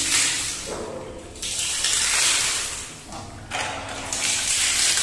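Water spraying and splashing out of a PVC ball-cock float valve. The hiss dies down twice and comes back, as the float is lifted to shut the valve and let go again.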